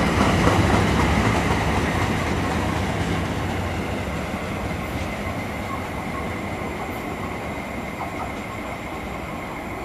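NJ Transit commuter train of Bombardier bi-level cars pulling away: a rumble with a few wheel clicks over rail joints at first, fading steadily as the train recedes, with a thin steady high whine underneath.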